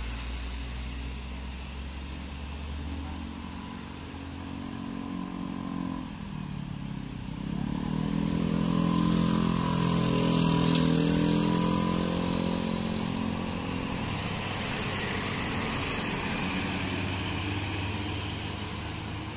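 Diesel coach engine working up a hill, its pitch dipping about six seconds in as it changes gear, then rising and loudest around ten to twelve seconds in as the bus draws near and passes close, with other traffic going by.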